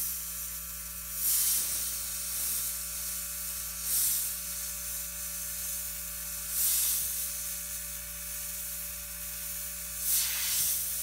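Iwata Eclipse BCS airbrush spraying paint: a steady hiss of air with four louder spray bursts, each under a second, spaced a few seconds apart. A low steady hum runs underneath.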